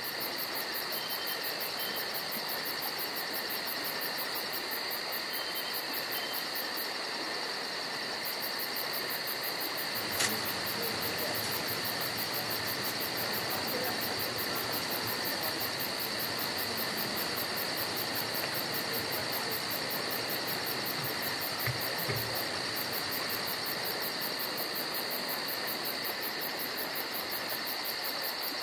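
Steady insect chorus: a continuous high buzzing drone with a fast, even pulsing shimmer on top. A single sharp click about ten seconds in.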